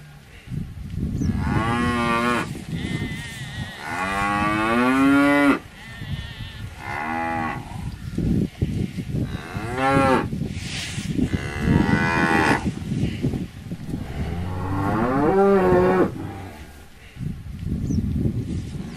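Cows mooing again and again: about seven drawn-out calls, each a second or so long, some sliding up in pitch, with a low rustling noise under and between them.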